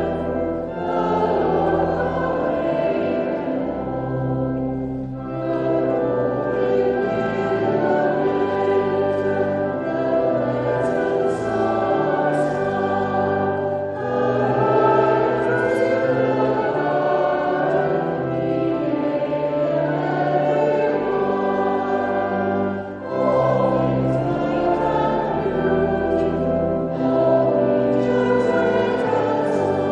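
A choir singing a hymn or anthem in parts, with sustained low accompaniment underneath.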